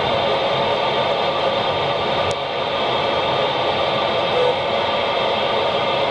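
Steady hiss of a 2 m FM ham radio receiver with its squelch open on a satellite frequency while no signal comes through, mixed with road noise inside a moving car. A brief click a little over two seconds in.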